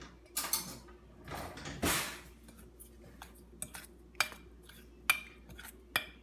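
Metal spoon stirring dry chickpea flour in a stainless steel bowl. A few soft scraping swishes come first, then the spoon clinks against the bowl about twice a second, each clink with a short ring.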